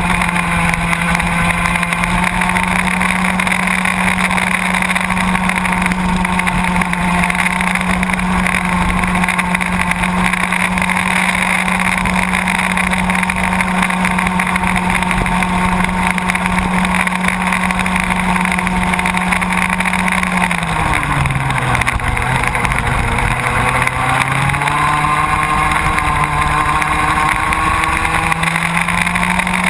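Baby ROK kart's small two-stroke engine heard on-board, running at high revs with a steady buzzing note. About twenty seconds in the revs drop for a few seconds, then build back up to the same high pitch near the end.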